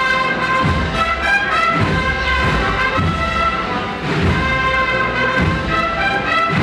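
Brass and drum band playing a Holy Week processional march: a brass melody of held notes over a steady drum beat.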